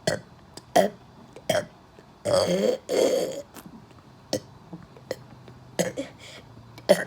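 A person burping deliberately over and over, one short burp after another, with two longer drawn-out burps about two seconds in.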